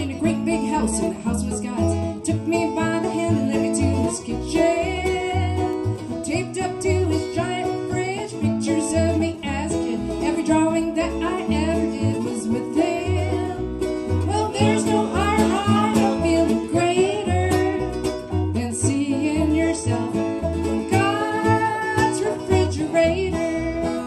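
Acoustic string band playing: fiddle, acoustic guitar, banjo and upright bass, with a steady plucked bass line under sliding fiddle lines.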